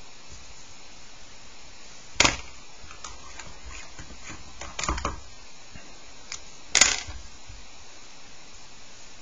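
A few sharp clicks and knocks of pencils being put down on a desk and a paper sheet being shifted, the two loudest about two seconds in and near seven seconds, over a steady hiss.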